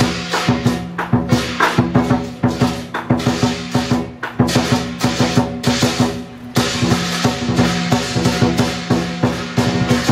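Lion dance percussion: a large Chinese drum beaten in a fast, steady rhythm over a ringing gong.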